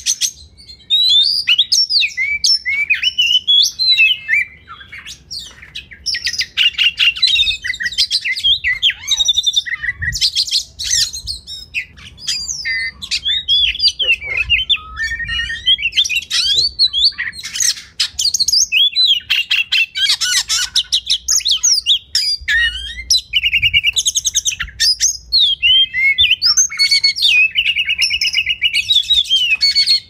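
Oriental magpie-robin (kacer) singing a long, varied song of quick whistles and chattering, rattling phrases, with a fast, even trill near the end.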